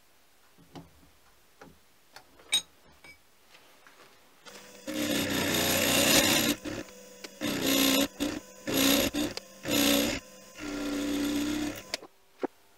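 An end mill on a milling machine cuts the side of a small round metal part clamped in a vise. After a few faint clicks, a harsh cutting noise over the spindle's hum starts about five seconds in and runs for almost two seconds, followed by four shorter cutting bursts. A single sharp click comes near the end.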